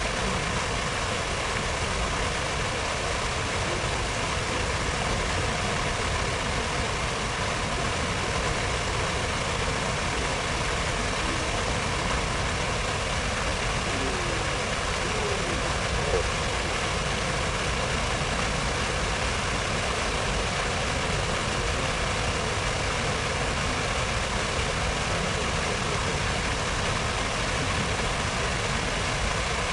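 Steady, even rushing of fountain water in the reflecting pool, with a low traffic rumble underneath. One brief knock rises above it about 16 seconds in.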